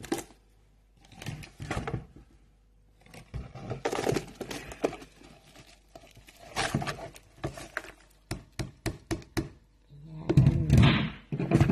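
Small fresh anchovies being tipped into a plastic bucket: irregular wet rustling and knocks against the plastic in short bursts, with a quick run of sharp clicks about eight seconds in.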